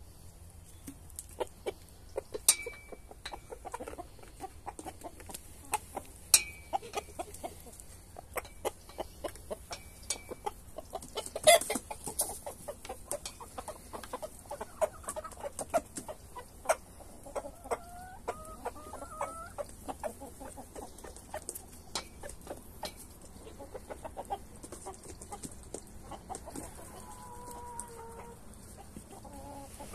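Hens clucking as they forage, with short wavering calls about two-thirds through and a drawn-out call near the end. Many short clicks and taps run throughout, with one louder knock about eleven seconds in.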